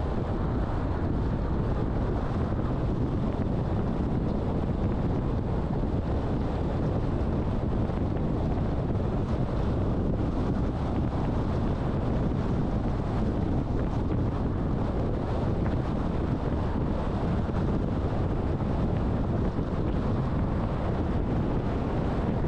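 Steady rumble of road and wind noise from a moving car, with wind buffeting the microphone.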